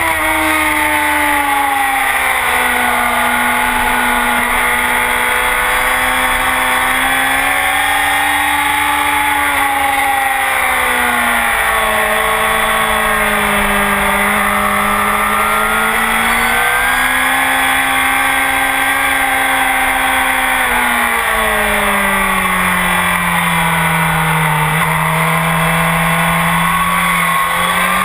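Honda CBR1000RR inline-four running hard through a full Akrapovic exhaust at track speed. Its pitch rises and falls with the throttle through the corners, with a few sudden steps up and down.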